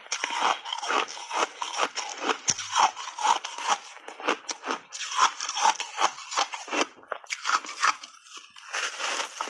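Crunching of refrozen block ice being bitten and chewed, a rapid run of crisp crunches with a brief lull about eight seconds in.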